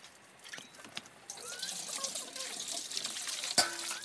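Water poured from a vessel into a steel basin, splashing steadily from about a second in, with one sharp knock near the end.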